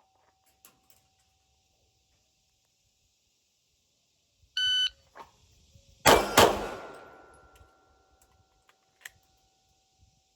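A shot timer's start beep, then about a second and a half later two 9mm pistol shots from a Glock 45 fired about a third of a second apart after a draw from the holster. A ringing tone hangs on after the shots and fades over a few seconds.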